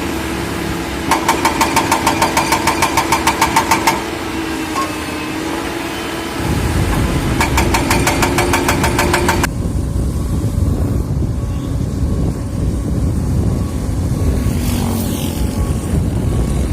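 Heavy excavator diesel engines running on a construction site. A fast, even metallic clatter of about five strikes a second goes on for a few seconds, then a deeper low engine rumble comes in about six seconds in.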